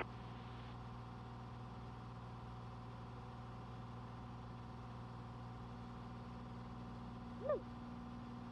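Cessna 182's piston engine and propeller running steadily in cruise, a constant drone. About seven and a half seconds in, a short chirp briefly rises and falls in pitch.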